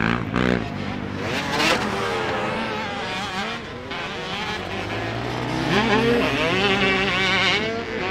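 Small 65cc two-stroke motocross bike engine revving up and down as it is ridden round a dirt track, its pitch rising and falling with throttle and gear changes. It climbs sharply about six seconds in.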